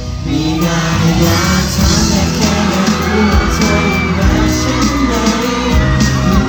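Thai pop song with a steady beat played loudly through a hall's sound system, with singing, and an audience cheering and shouting over it.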